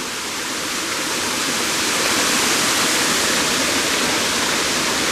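Water of a man-made waterfall falling and splashing in a steady rush, growing a little louder over the first couple of seconds.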